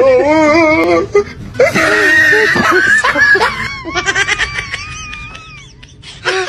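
Loud human laughter in bursts through the first few seconds, followed by a long, wavering high-pitched tone that slowly fades out.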